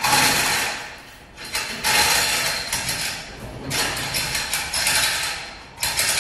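A hand-held power tool run in about four bursts of one to two seconds, each starting sharply and fading away.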